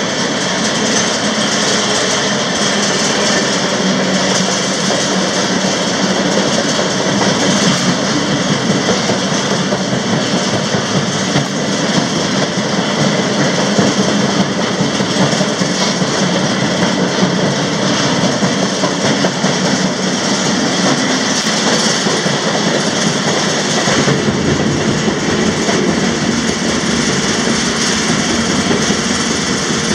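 Freight train rolling on the rails: a loud, steady rumble and rattle of the cars.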